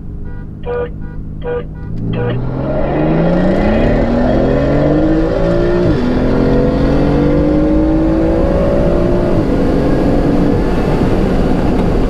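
A few short car-horn honks, the signal to start the roll race, then a sports car's engine pulling hard at full throttle. Its pitch climbs steadily and drops sharply with upshifts about six seconds in and again near nine and a half seconds.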